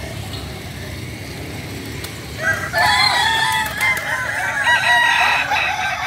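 Several kukuak balenggek roosters crowing over one another, starting about two and a half seconds in. Their long crows break into many short stepped notes, the terraced crow this West Sumatran breed is judged on.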